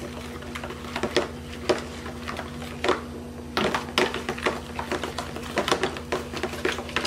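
Spoons stirring freshly activated glue slime in plastic bowls: irregular clicks, taps and scrapes of spoon on bowl, a few a second, over a steady low hum.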